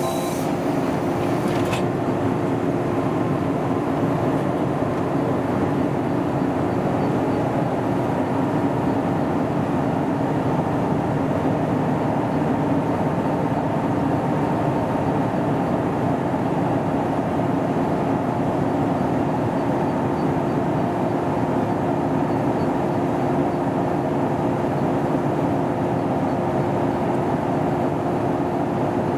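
JR West 115 series electric train standing at a platform, its underfloor equipment giving a steady hum with a constant tone. A short hiss of air ends about two seconds in.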